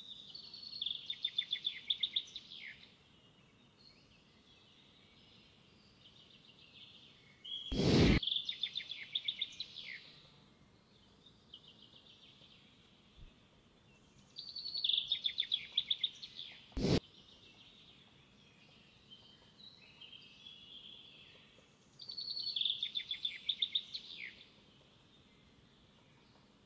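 A songbird singing the same short song four times, about every seven seconds, each a two-to-three-second run of quick high notes, over faint background hiss. Two sharp knocks cut in, a louder one about eight seconds in and a short one about seventeen seconds in.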